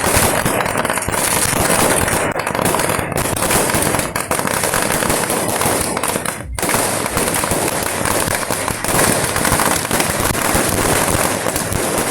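Fireworks barrage: a dense, unbroken volley of firecracker bangs and crackling, with a momentary break about halfway through.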